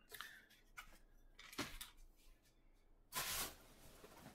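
Faint, brief rustles and small handling noises, then a louder half-second rustle about three seconds in: hands digging into packing peanuts in a cardboard shipping box.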